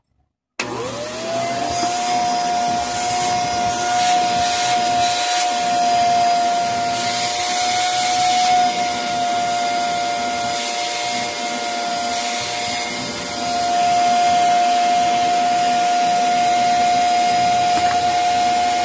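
Bagless cyclonic canister vacuum cleaner switched on about half a second in, its motor spinning up into a steady high whine over a rushing hiss and running on, briefly a little quieter past the middle. It is running again after a no-power fault was repaired.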